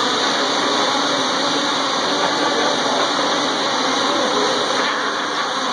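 ETFD2 multicopter's propellers and electric motors whirring steadily in a low hover, a constant loud buzz with faint steady motor tones in it.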